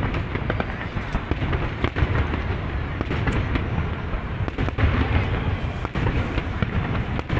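Aerial fireworks display: shells bursting in a continuous barrage of booms and crackles, with no pause.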